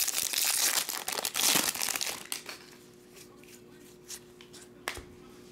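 Foil wrapper of a Topps baseball card pack crinkling and tearing as it is ripped open by hand, for about two seconds. Then it goes much quieter, with a few light clicks from the stack of cards being handled.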